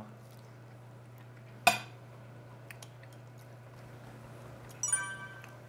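Quiet table sounds of people eating roast chicken: knives and forks working on plates and chewing, over a low steady hum. A short sharp clink comes about a second and a half in, and a brief bright ringing sound near the end.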